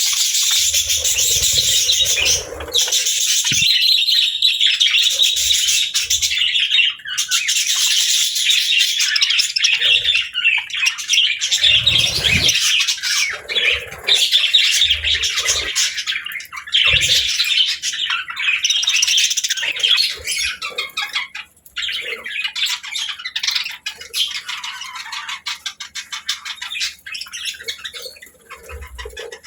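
Budgerigars chattering and warbling in a dense stream of fast chirps and squawks, easing off over the last several seconds.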